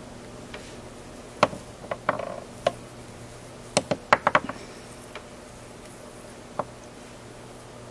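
Scattered sharp clicks and taps from handling small fly-tying materials and tools at the bench, with a quick run of five or six clicks about four seconds in, over a steady low hum.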